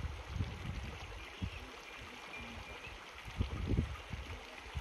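Small rocky mountain brook running steadily, with irregular gusts of wind buffeting the microphone that grow stronger in the second half.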